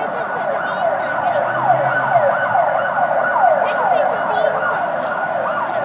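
A siren sounding, with a quick falling sweep in pitch repeated about three times a second over a steady high tone.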